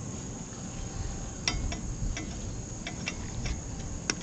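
Crickets chirping steadily as a thin high background tone, with a scatter of small sharp clicks and taps from about a second and a half in.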